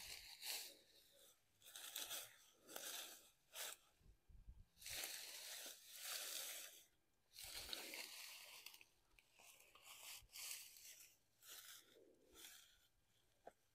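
Dry straw mulch being pulled apart and spread by gloved hands: faint rustling and crunching in uneven spells with short pauses.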